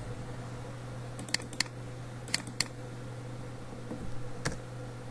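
Computer mouse clicking: two quick double-clicks about a second apart, then a single click near the end, over a steady low hum.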